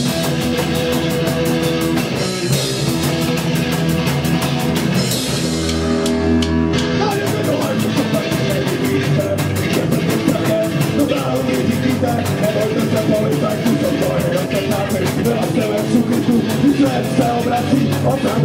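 Live rock band playing a song: guitar, bass guitar and drum kit keeping a steady beat. About six seconds in there is a brief break where a low note is held, then the full band comes back in.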